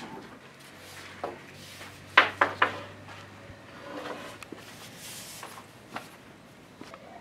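Wooden boards and a long wooden strip being handled: three sharp wooden knocks close together about two seconds in, with lighter knocks and rubbing around them, over a faint low hum.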